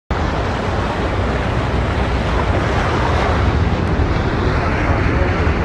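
Loud, steady rushing of water with wind rumbling on the microphone, starting abruptly.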